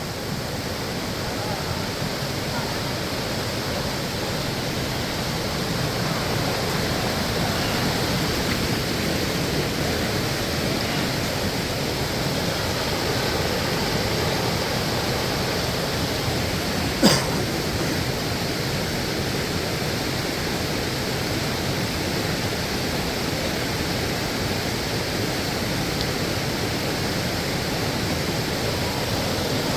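Waterfall: a steady, unbroken rush of falling water. A single sharp click a little past halfway.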